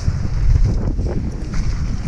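Wind buffeting an action camera's microphone at speed on a downhill mountain bike, over the tyres rolling on a dirt trail and the bike rattling on bumps.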